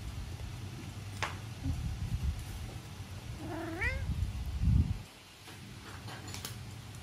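Norwegian Forest Cat giving one short rising meow a little past the middle, during a play-wrestle with a hand, over low rubbing and scuffling noise from the tussle. A loud thump comes soon after the meow, and the scuffling stops there.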